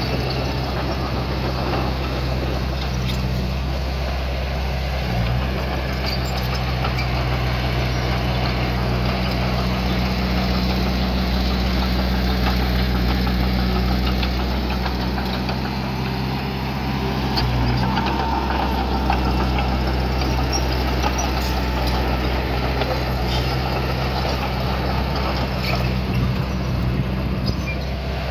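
Diesel engine of a construction machine running steadily at an even speed, a low continuous drone.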